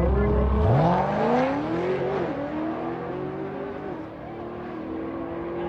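Car engine accelerating hard. The revs climb steeply, drop at an upshift about two seconds in, then climb again more slowly and hold.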